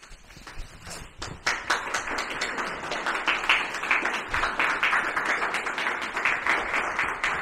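Audience applauding: a few scattered claps build within about a second and a half into steady, full applause.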